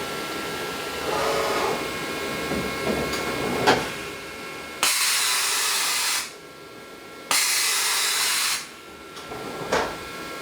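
Tool change on a Bridgeport Torq Cut 22 CNC mill: a clunk, then two loud, sudden compressed-air hisses of about a second and a half each, then another clunk, over a steady machine whine.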